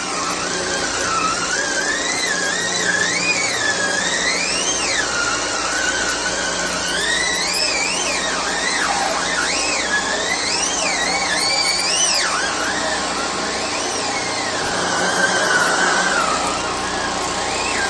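Cordless drill driving a cord reel, its motor whining and wavering up and down in pitch, then holding steadier near the end.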